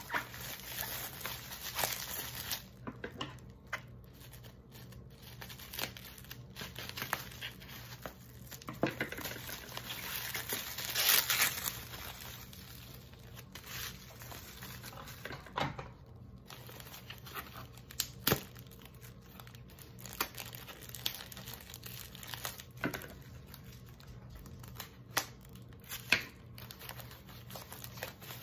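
Bubble wrap and plastic packaging being handled, crinkled and pulled open by hand: irregular rustling with sharp crackles, loudest for about a second around eleven seconds in.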